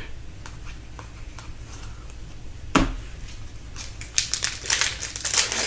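Trading cards being handled and flicked through one by one: light clicks and rustles, a single soft knock about three seconds in, then a quicker run of card flicks near the end.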